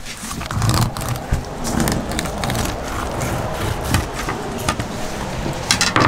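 Fillet knife slicing and scraping through a steelhead on a rubber cutting mat, with the fish being handled and knocked against the board.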